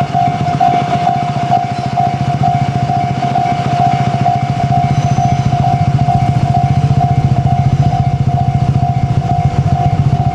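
Railway level-crossing alarm ringing a single high tone in a quick, even repeat, over a steady low rumble.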